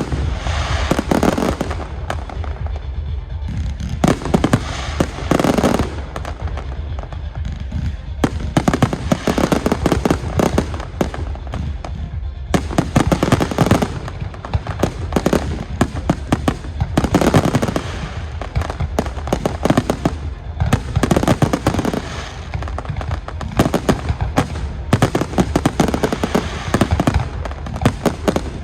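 Fireworks display: a continuous barrage of bangs and crackling shells going off in dense clusters, with music playing underneath.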